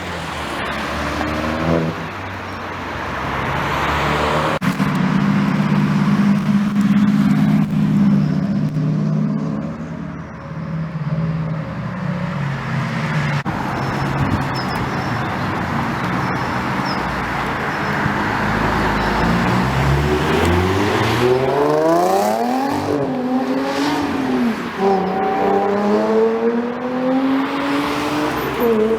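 Modified performance car's engine and exhaust revving and accelerating past. There is a steadier, lower engine note for several seconds in the middle, then the pitch sweeps up and down repeatedly near the end as it revs hard.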